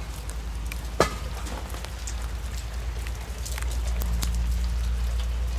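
Steady low engine hum under a continuous crackling hiss, with a sharp click about a second in; the hum gets a little louder about four seconds in.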